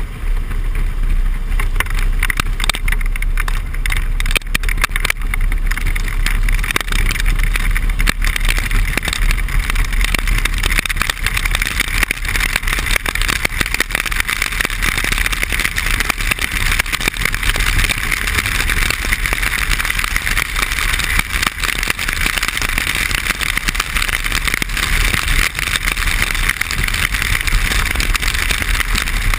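Harley-Davidson Electra Glide Limited's V-twin engine running steadily at highway speed under constant wind noise on the microphone. From about ten seconds in, the noise of rain and wet-road spray grows, with many small ticks.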